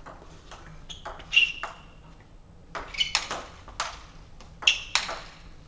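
Table tennis ball being hit back and forth between bats and table in a training rally: a quick string of sharp clicks with a short pause in the middle, the loudest about a second and a half in and near the end.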